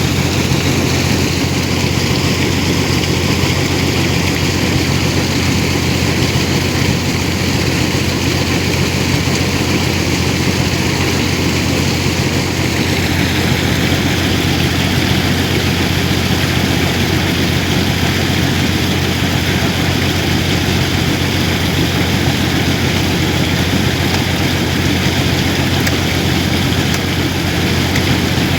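Engine-driven air compressor running steadily while flushing a bore well, with a low continuous hum; a little under halfway through, its higher-pitched part shifts and settles into a new steady tone.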